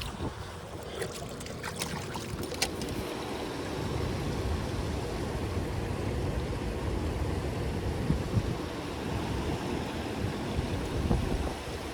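Steady rush of river water around a kayak, with a few light knocks in the first three seconds.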